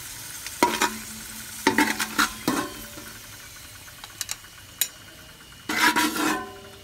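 Cashews and raisins sizzling in a little ghee in an aluminium pot, with a slotted metal ladle scraping and clinking on the pan bottom as they are scooped out; the loudest scrapes come near the end.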